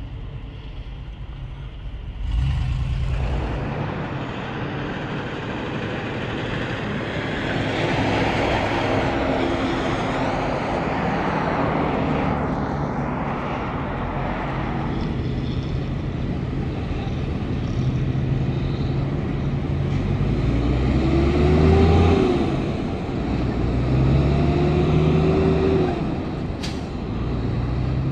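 Big diesel trucks going by on the highway. There is a sudden rise of engine and tyre noise a couple of seconds in, then a broad swell of road noise. From about 20 seconds a truck engine revs up and drops back three times as it shifts up through its gears.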